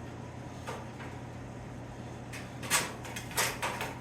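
Sheet-metal patch panel being handled and set against the truck body: a few short scrapes and knocks, the loudest near three seconds in, over a steady low hum.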